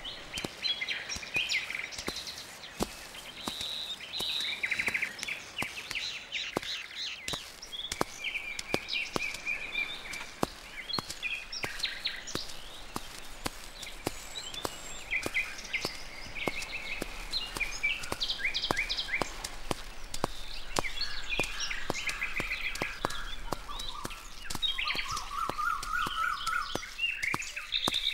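Birds chirping and trilling throughout, with short repeated calls, and a lower whistled call near the end. Frequent sharp clicks of footsteps through leafy undergrowth run underneath.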